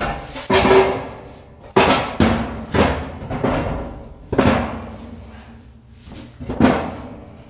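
Large metal 16-inch gun powder cans being shifted on a steel deck: a series of sharp metal bangs and clanks, about ten of them, several with a short ringing tail.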